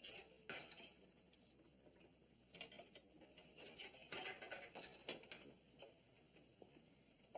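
Faint scattered clicks and light scraping handling sounds, with several small clicks about two to five seconds in.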